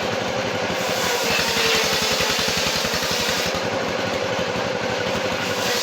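Sawmill machinery running: an engine going steadily with a fast, even pulse and a steady hum.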